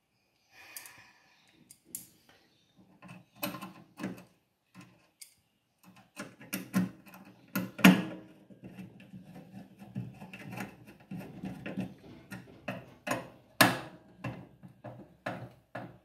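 Screwdriver fastening small screws on the thermostat mount atop a microwave oven's magnetron: irregular clicks, taps and light scraping, sparse at first and busier from about six seconds in.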